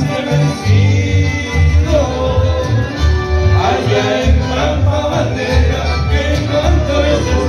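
A live chamamé band plays loud dance music with a steady, pulsing bass line.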